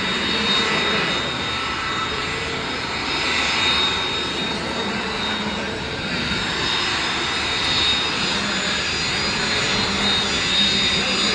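Aircraft engines running steadily: an even rush of engine noise with a faint, steady high whine.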